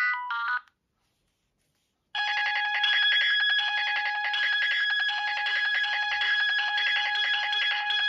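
Philips 162 (CT1628) mobile phone playing its built-in ringtones through its small speaker, one after another. A short melody cuts off within the first second. After about a second and a half of silence, a new ringtone starts: a steady, rapidly pulsing ring on a few fixed pitches that keeps going.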